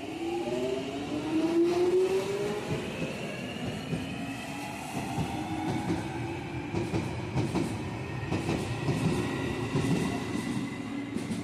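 London Underground Jubilee line 1996 stock train pulling away, its traction motors whining in several tones that rise in pitch as it gathers speed. From about halfway on, the wheels clatter over rail joints.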